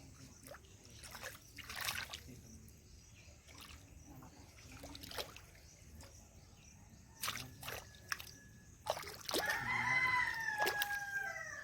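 Shallow flowing water trickling, with scattered short splashes. Near the end comes a loud pitched cry that falls in pitch over about two seconds.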